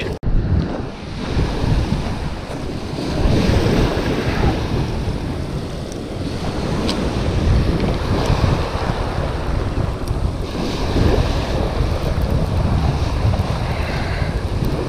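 Small waves breaking and washing over a shingle beach, swelling twice as waves run in, with wind buffeting the microphone throughout.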